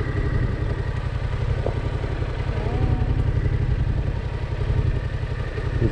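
Motorcycle engine running steadily, with an even low pulsing beat and no revving.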